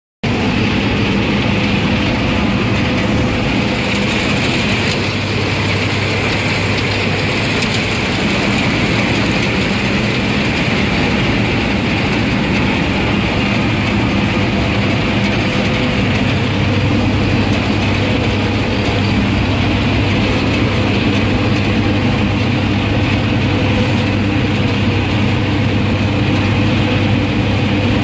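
Claas Mercator 75 combine harvester running steadily while cutting winter barley, heard from inside the cab: a constant diesel engine drone mixed with the clatter of the threshing and cutting machinery.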